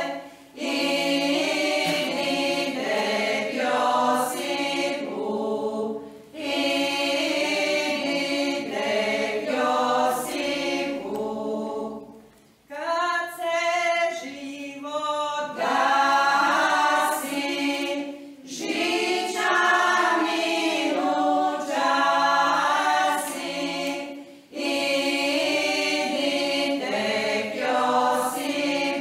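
Women's folk choir singing a Croatian church folk hymn a cappella, in several voices, in phrases of about six seconds with short breaths between. About halfway through there is a quieter, thinner passage before the full group comes back in.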